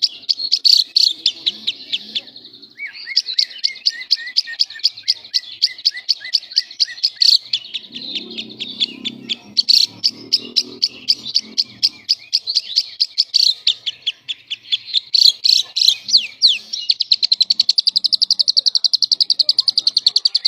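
Lovebird singing a long, almost unbroken stream of rapid high chirps and chattering notes: the continuous 'semi konslet' style of song. Near the end it runs into a fast, even trill.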